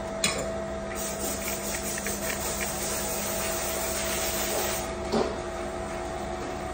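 Steady hum of dental-lab machinery. About a second in, a loud hiss starts and runs for nearly four seconds, like air blowing or a small grinder. It is set off by a sharp click just before it, and a knock comes shortly after it stops.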